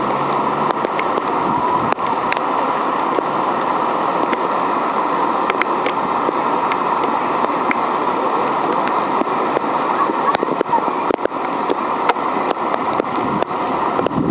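Steady rush of floodwater, with scattered sharp ticks of splashes through it.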